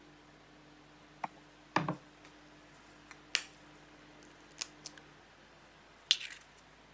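Scattered sharp clicks and taps of a metal spoon against glass and ceramic bowls and against an eggshell, ending in a short cluster of cracks as the shell is broken apart.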